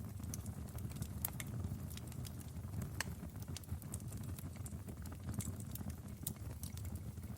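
Wood fire burning in a fireplace: a steady low rumble of flames with irregular sharp crackles and pops several times a second.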